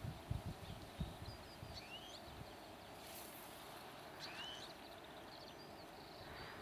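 Faint bird calls: a handful of short chirping glides, a second or two apart, over a quiet outdoor hiss. A few low thumps come in the first second.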